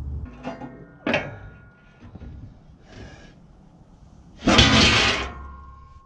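Steel diamond-plate floorboard of a backhoe being set back into its frame: a sharp metallic clank with a ringing tone about a second in, a few light knocks, then a louder clatter with ringing after it around four and a half seconds in as the plate goes into place.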